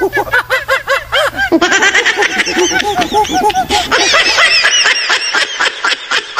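Laughter sound effect: several high-pitched, cartoonish voices giggling in quick repeated bursts, jumping higher in pitch about a second and a half in.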